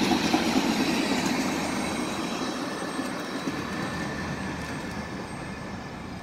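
Freight train of loaded tank cars rolling along the rails, the steel wheels giving off a thin, steady high squeal. The sound fades steadily as the last cars pull away.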